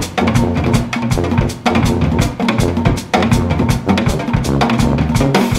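Instrumental jazz music: a busy, driving drum-kit groove with bass drum and snare, over a low tuba bass line.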